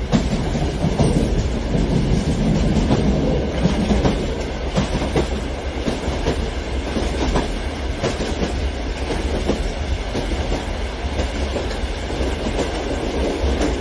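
Large-scale electric model train coaches rolling over sectional track, with a steady rumble and irregular clicks of the wheels over the rail joints.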